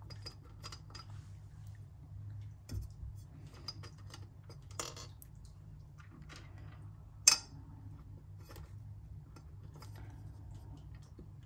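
Small pieces of orchid bark and expanded-clay pellets clicking and rattling as they are worked down into a pot around an orchid's roots. The clinks are scattered and light, with a sharper knock about seven seconds in.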